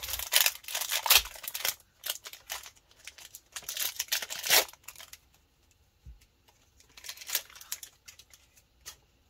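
Foil wrapper of a Pokémon TCG Brilliant Stars booster pack crinkling and tearing as it is opened, in several separate bursts of crackle, the longest at the start.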